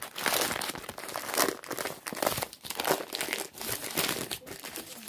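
Taco Bell paper food wrapper being unwrapped by hand close to the microphone, crinkling and rustling in irregular bursts.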